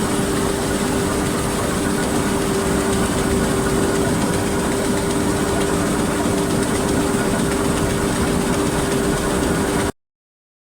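Diesel farm machinery running steadily under a constant hum with a steady whine, then cutting off suddenly about ten seconds in.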